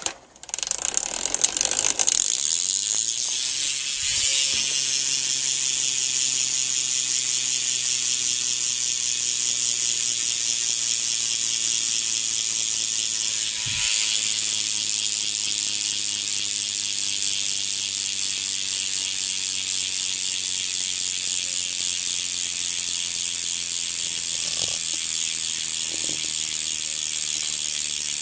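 BSD Back Street rear hub freewheeling as the wheel spins: a rapid, steady ratchet buzz of the pawls clicking past the driver, its pitch sinking slowly as the wheel loses speed. A short knock comes about halfway through and a couple more near the end.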